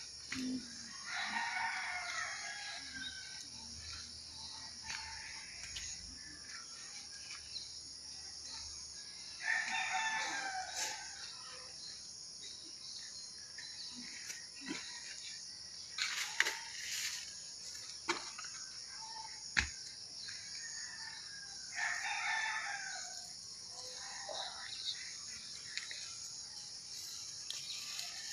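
A rooster crowing three times, each crow lasting under two seconds, with a steady high hiss underneath and a few sharp clicks near the middle.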